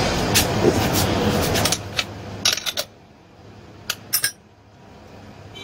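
Brush cutter's small two-stroke engine running steadily, its ignition coil freshly replaced. It cuts out a little under two seconds in, and a few sharp metallic clinks and taps follow as the machine is handled.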